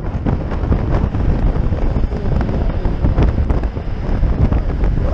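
Wind buffeting the microphone of a camera on a rider moving at speed: a loud, steady rumble.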